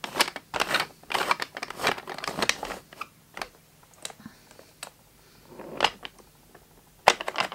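Wooden toy train engine being handled and moved on wooden track by hand: a run of small clicks, knocks and rustles, busiest in the first few seconds, then scattered ticks with a brief rustle about six seconds in and a few more clicks near the end.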